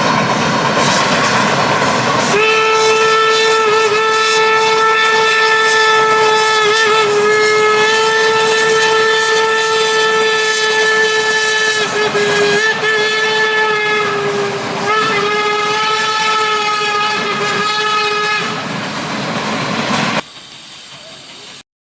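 A train running, then blowing a long whistle held at a steady pitch for about sixteen seconds, with two brief breaks. The train noise drops away sharply near the end.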